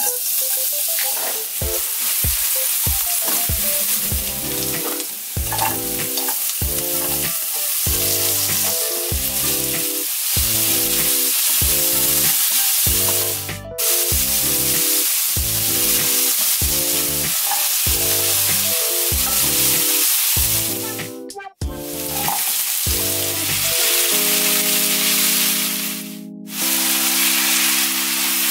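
Oil sizzling in a frying pan as chopped green onions, then diced vegetables and pineapple, are stir-fried with a spatula. Background music with a regular beat plays underneath, and the sizzle breaks off briefly three times.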